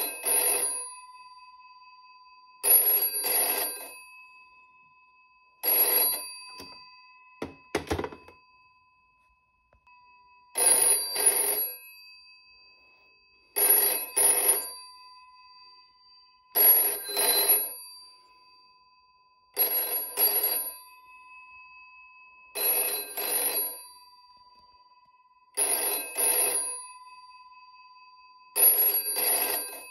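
A GPO 741 rotary-dial telephone's bell ringing in the British double-ring cadence: a pair of short rings about every three seconds. About eight seconds in the rings skip one beat, and a few light clicks come instead.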